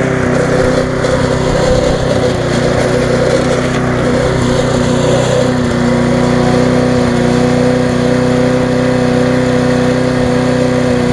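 Briggs & Stratton Classic side-valve engine on a Viking mulching rotary mower running at cutting speed while the mower is pushed through grass. The engine note settles into a steadier tone about halfway through.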